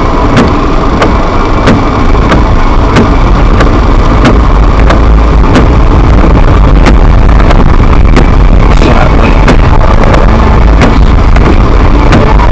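A car driving on a snow-covered street, heard from inside the car: a loud, steady low rumble of engine and tyres. A sharp click repeats about every two-thirds of a second throughout.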